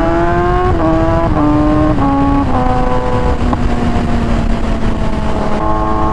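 2020 Kawasaki ZX-10R's inline-four engine under way. Its pitch climbs, then drops in four quick steps within about two seconds as it shifts up through the gears. It then runs steady and jumps back up in pitch near the end, over a steady low rumble.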